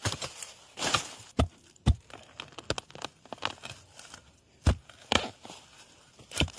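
A hoe chopping into earth and roots to dig out a winter bamboo shoot: about ten irregular knocks with crackling and rustling between them.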